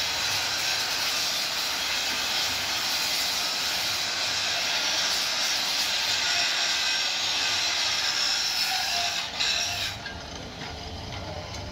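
Handheld angle grinder grinding a steel bar, a steady high-pitched grinding hiss. It cuts off about ten seconds in, leaving a much quieter low hum.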